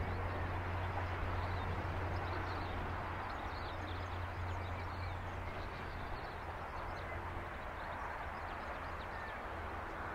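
Low steady engine drone of distant diesel freight locomotives, slowly fading, under a haze of outdoor noise, with faint bird chirps.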